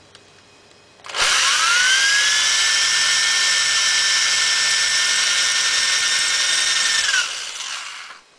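Electric drill spinning up about a second in, running steadily at full speed with a high whine, then winding down near the end. It is turning a reamer that cuts the primer pocket of a brass .223 case out to large rifle primer size.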